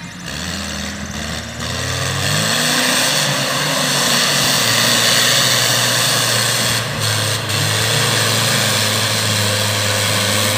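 Off-road 4x4 buggy engine revving as it drives through mud. The revs swing up and down about two seconds in, when it gets louder, then hold fairly steady at a high pitch.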